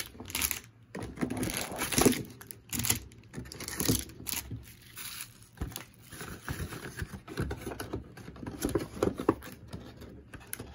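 A cardboard trading-card box and the card packs inside it being handled: irregular crinkling, rustling and scraping with short clicks and taps, and a louder knock about two seconds in.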